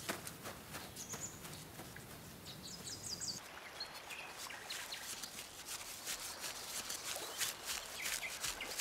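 Quick, light footsteps of an animated snowman pattering through grass and fallen leaves, with a few short bird chirps in the forest background.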